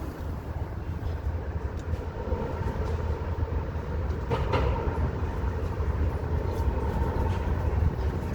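Steady low rumble of city street traffic, with a brief louder noise about four and a half seconds in.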